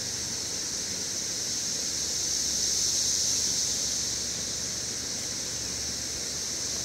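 Steady, high-pitched outdoor background hiss that swells and fades slowly, with no distinct events.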